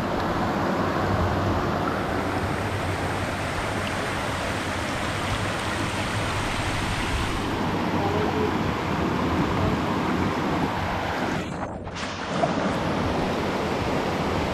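Shallow rocky river rushing steadily over stones, with a brief dip about twelve seconds in.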